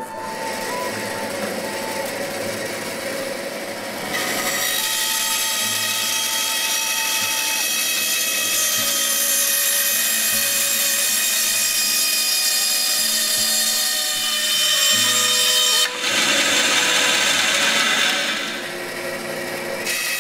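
Band saw running and cutting wood along a curved line. The blade noise gets louder about four seconds in. It is loudest and harshest for a couple of seconds near the end, then eases.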